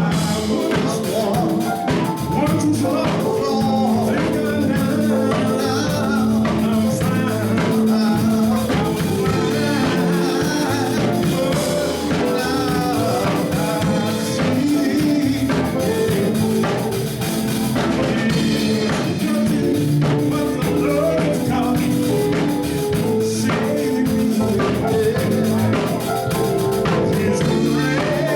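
Live gospel song: a singer over a band with a drum kit.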